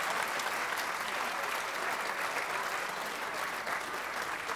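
Audience applauding, a dense steady clatter of clapping that slowly eases off.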